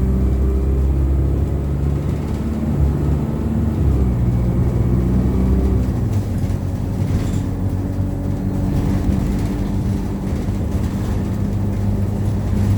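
Engine and cabin noise inside an ADL Enviro200 single-deck bus on the move: a steady low engine drone whose pitch shifts about two seconds in and again about six seconds in, as the bus changes speed.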